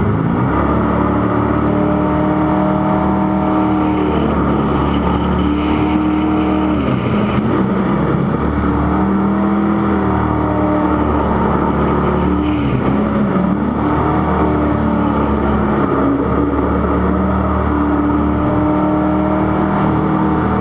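Jet sprint boat engine running hard, its pitch rising and falling repeatedly as the throttle opens and closes, under a steady rush of wind and water noise.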